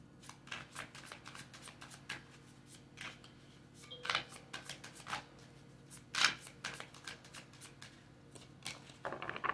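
Tarot cards being shuffled by hand, the cards slapping and sliding against each other in quick, irregular clicks, with a couple of louder slaps about four and six seconds in.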